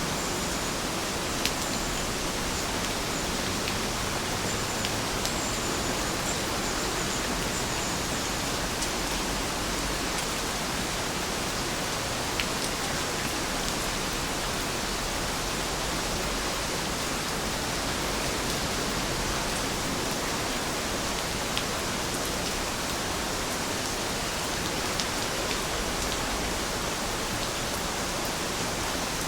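Steady rain, a dense even hiss of falling rain with a few scattered sharper drop ticks.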